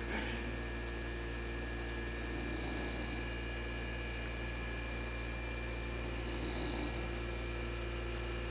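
English bulldog snoring while resting, soft snoring breaths coming about every three to four seconds over a steady low hum.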